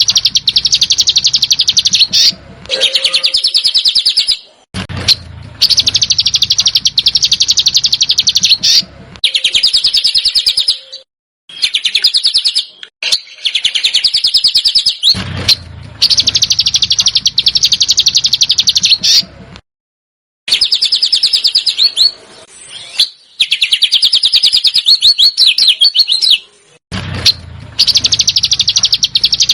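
Songbird giving a harsh, rapid-fire 'besetan' chatter: dense trains of fast, scratchy notes in bursts of two to four seconds, broken by short abrupt pauses.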